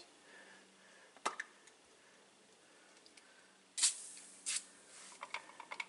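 Hand spray bottle squirting twice, a short hiss each time, the two squirts under a second apart. A single sharp click comes about a second in.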